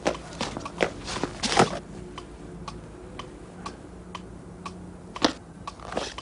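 Pendulum cuckoo clock ticking steadily, about two ticks a second, with a few louder knocks in the first second and a half.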